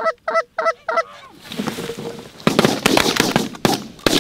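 Canada goose honking, five quick calls about four a second in the first second, then a rapid volley of shotgun blasts in the second half.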